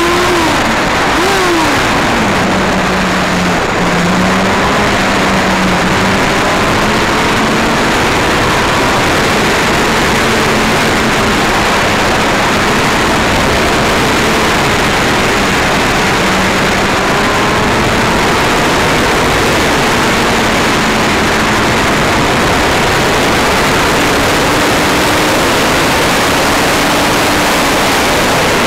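Yamaha YZF-R1 inline-four engine heard from on board, its pitch rising and dropping briefly in the first couple of seconds, then running at steady revs. Heavy wind rush on the microphone covers most of the engine.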